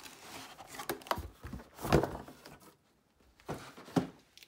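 Cardboard box and packaging being handled as a laptop is lifted out of it: a handful of knocks, thuds and rubs, the loudest about two seconds in.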